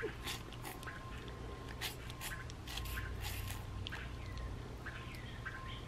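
A small child sucking and biting on an ice pop: an irregular string of small wet mouth clicks and slurps.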